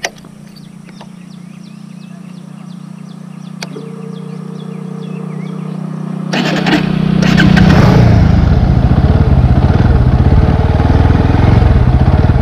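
Bajaj Pulsar NS160's oil-cooled, fuel-injected single-cylinder engine idling, then about six seconds in it revs and the motorcycle pulls away, growing much louder as it accelerates.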